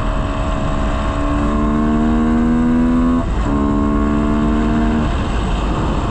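Yamaha sport motorcycle's engine pulling under throttle, its pitch rising slowly. It breaks off briefly about three seconds in, picks up again and climbs, then fades near the end. Wind and road rumble on the microphone run underneath throughout.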